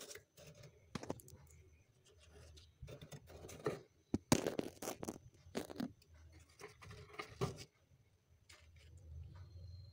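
Refrozen freezer frost crunching and crumbling as fingers grip and break chunks of it, in irregular crisp bursts that are loudest about four seconds in.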